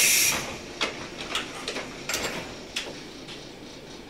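Inside a JR 115 series electric train car: a loud compressed-air hiss cuts off just after the start, followed by a scatter of sharp clicks and knocks that die away over the next few seconds.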